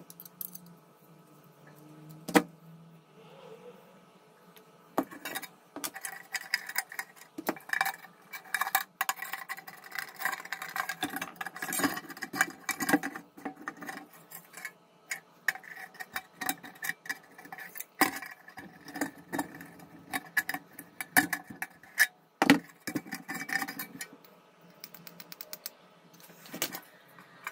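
Rusty sheet-metal parts of an old kerosene hurricane lantern handled and turned over by hand: irregular metal clinks, rattles and knocks, with a few sharper knocks standing out.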